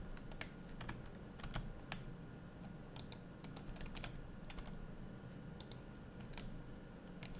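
Irregular taps of computer keyboard keys and mouse clicks, single strokes and short clusters spaced up to a second apart, over a faint steady low hum.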